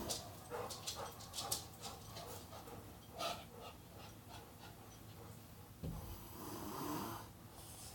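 Snoring: one long, low snoring breath about six seconds in, with small clicks and snuffles in the first half.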